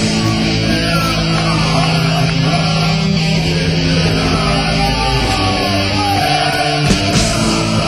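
Loud heavy rock music with distorted electric guitar, running on without a break.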